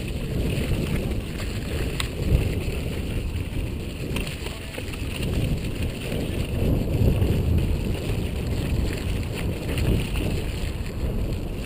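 Wind rumbling on a helmet-mounted GoPro's microphone, mixed with the rattle and clatter of a mountain bike riding down a muddy, rocky trail. A few sharp knocks from the bike hitting rocks, the clearest about two seconds in.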